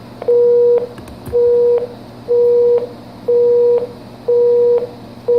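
Telephone line tone after the voicemail system hangs up: a single low tone beeping once a second, each beep about half a second long, like a busy signal, heard over a cordless phone's speakerphone.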